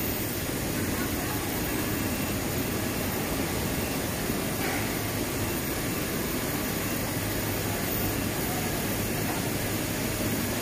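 Machinery of a sweet potato strip pre-treatment line running: a steady, even noise with a low hum underneath, from the washing tank and the cutter's gear motor.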